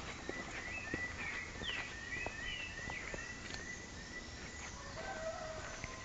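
Birds calling in dense woodland, one repeating a short chirp three or four times a second for the first few seconds, with other thin calls above it. Footsteps tap on a stone-paved path.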